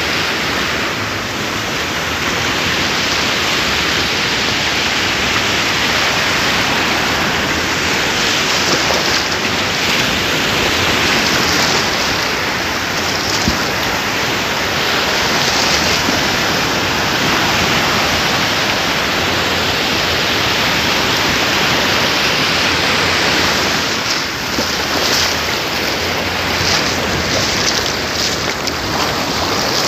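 Sea surf breaking and washing up a sandy beach: a steady rush that swells brighter now and then as waves run in.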